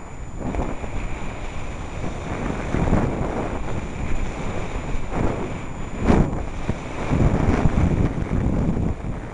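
Wind buffeting the microphone of a camera carried by a moving skier, with the hiss of skis sliding on snow. It comes in uneven surges, the strongest about six seconds in.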